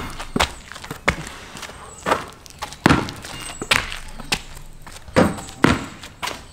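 A basketball bouncing on a concrete court as it is dribbled and shot, with knocks as it strikes the rim and glass backboard: about eight separate thuds at uneven spacing.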